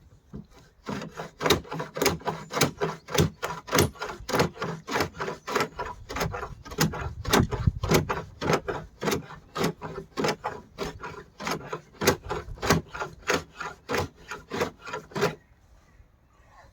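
Handsaw cutting through a wooden door, in steady back-and-forth strokes about three a second, stopping shortly before the end.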